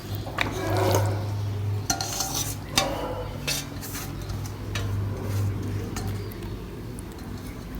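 Utensil scraping and clinking against a bowl as minced chicken momo filling is stirred and mixed, in scattered sharp clicks, over a steady low hum.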